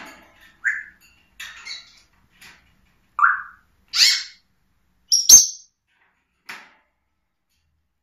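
African grey parrot giving a string of short whistles and squawks, the loudest a harsh squawk about four seconds in, followed a second later by a sharp click and a high whistle.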